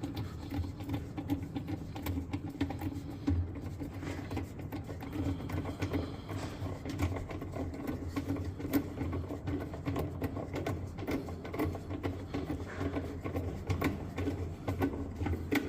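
Washer agitator bolt being tightened with a 7/16 socket: many rapid, irregular clicks over a steady low hum.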